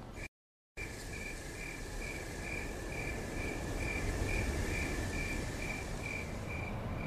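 Night ambience of crickets chirping in a steady, even rhythm, about two to three chirps a second, over a low hiss. It comes in after a brief moment of dead silence near the start.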